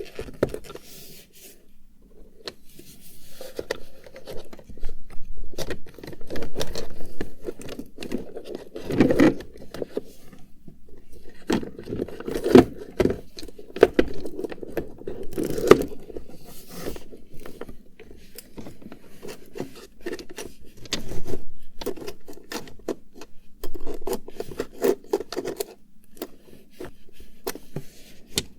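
Cosmetics and their cases being handled: a run of irregular clicks, taps and scrapes on small containers, with louder knocks now and then.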